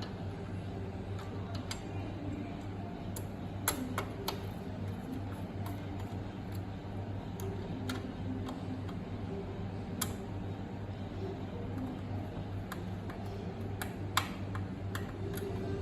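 Small hand clicks and taps, a dozen or so at irregular intervals, as parts of a USB cable tester's board are fitted back together, over a steady low hum.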